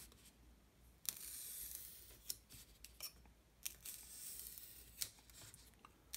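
X-Acto hobby knife drawn along a steel straight edge, scoring foam board about halfway through: faint scratchy cutting strokes with a few sharp clicks between them.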